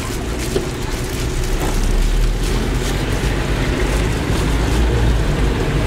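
Engine and road rumble of a car heard from inside its cabin while driving in traffic, growing louder about two seconds in.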